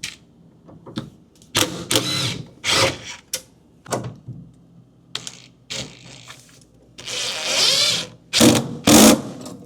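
Screws being driven into the refrigerator's bottom hinge bracket to fasten it, in a string of short bursts with one longer run of about a second near the end.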